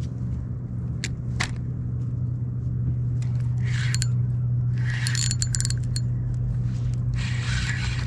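Spinning reel working as a fish is fought on a fishing rod: three bursts of metallic whirring and rasping from the reel, with a couple of sharp clicks before them, over a steady low hum.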